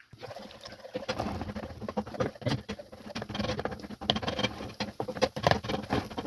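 An egg frying in hot oil in a pan: a steady, dense crackling and spitting.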